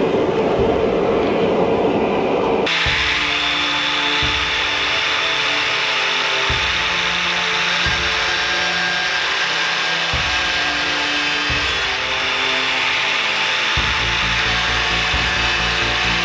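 Angle grinder cutting into a steel bar, a steady high grinding hiss that starts abruptly about three seconds in. Before it, a rushing noise from the forge fire. Background music plays underneath throughout.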